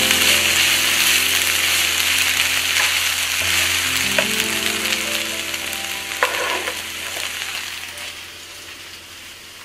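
Sliced onion, potato, mushroom and spinach sizzling as they fry in oil in a pan and are stirred, with two short knocks about four and six seconds in. The sizzle dies down over the last few seconds. Soft sustained background music plays underneath.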